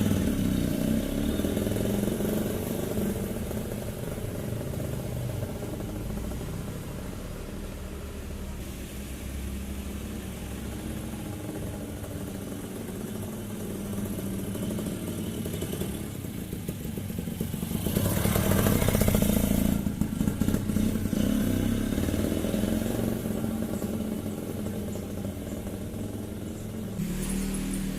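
Freshly rebuilt Suzuki two-stroke motorcycle engine running at low revs as the bike is ridden gently. The engine gets louder for a couple of seconds around two-thirds of the way through.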